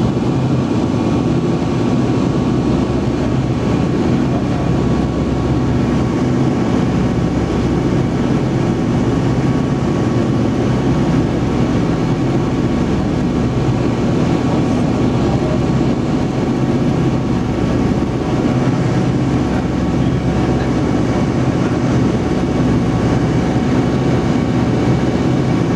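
Steady drone of propeller aircraft engines in flight, unchanging in pitch and level.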